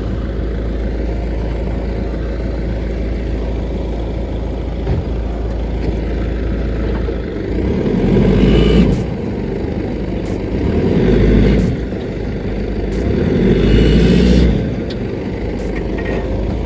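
A four-wheel-drive vehicle's engine running steadily, revving up three times for about a second each as the bogged vehicle is driven to get it out of the mud.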